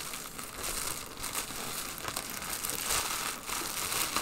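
Plastic shipping mailer bag crinkling and rustling as it is pulled and torn open by hand, louder in a couple of spots.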